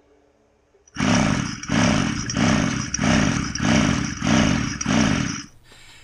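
Echo PAS-266 two-stroke power head being pulled over on its recoil starter with the spark plug out, in about seven rhythmic whooshing surges about two-thirds of a second apart. The engine is water-logged, and each pull blows water and air out of the plug hole into a towel, clearing the cylinder.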